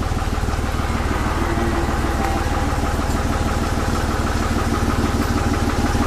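Vehicle engine idling steadily with an even, rapid pulse, the engine still switched on.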